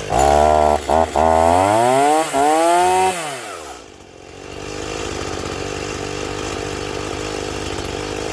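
Stihl MS210 two-stroke chainsaw just fired up, revving in several uneven surges with brief dips for about three seconds, then dropping back and settling into a steady idle.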